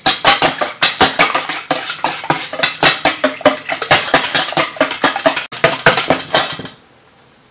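Eggs being beaten by hand with a metal utensil in a stainless steel bowl: quick, rhythmic clinking of metal on the bowl, several strokes a second. It stops shortly before the end.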